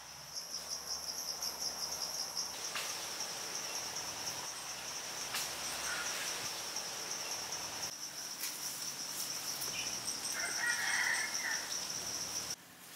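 A high-pitched insect trill, steady and finely pulsing, that cuts off suddenly near the end, with a few faint knocks.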